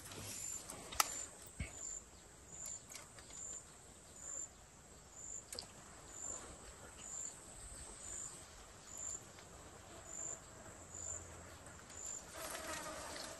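An insect chirping in a high, even pulse that slows from nearly two chirps a second to about one a second, over faint outdoor ambience. A couple of sharp clicks come about a second in and again in the middle.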